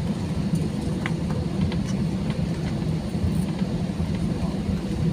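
Steady low rumble of an Airbus A320-214 cabin after landing, with a few faint clicks.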